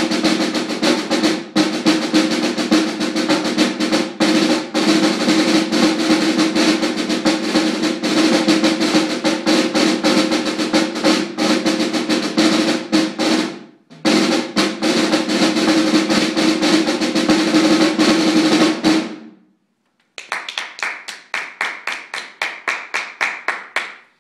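Snare drum solo: fast rolls and sticking on a concert snare drum, dying away in a fading roll about 14 s in and again near 19 s. After a brief silence comes a run of lighter, evenly spaced clicks, about five a second, without the deep drum sound.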